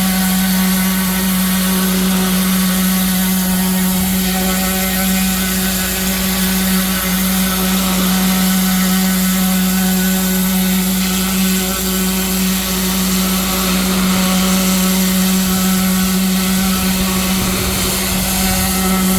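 Pressure washer running steadily, a constant low hum under the hiss of the high-pressure spray hitting a concrete block wall.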